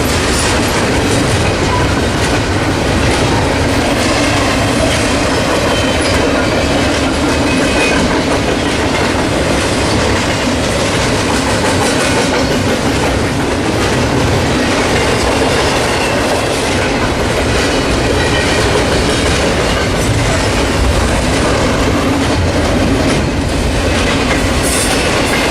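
A long freight train's cars rolling steadily past at close range, the wheels clattering over the rail joints in a continuous loud rumble.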